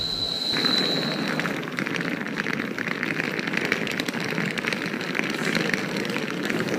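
Battle noise: a dense, rapid crackle of gunfire over a rumble of explosions, coming in abruptly about half a second in. A high thin tone fades out about a second in.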